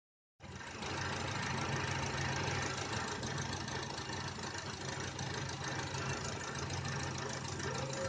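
Wuling Confero Lux+ engine idling steadily. The owner is hunting a strange noise in it that he likens to crickets chirping at night.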